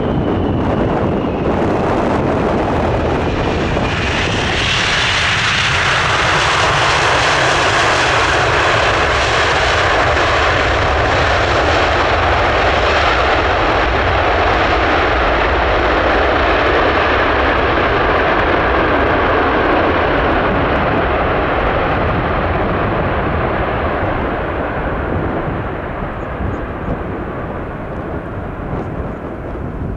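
Boeing 747-400's four jet engines just after touchdown. A falling whine comes first, then reverse thrust spools up about four seconds in into a loud, steady roar. The roar holds for about fifteen seconds and then dies away as the jet slows on its landing rollout.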